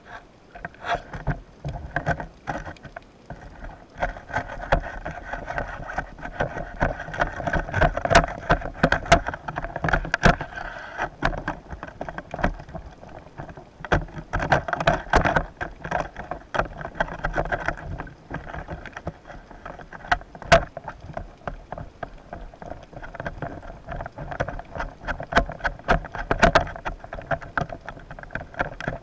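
A boat's engine and propeller heard underwater as a steady hum that swells and fades. Many irregular sharp clicks and knocks are heard over it.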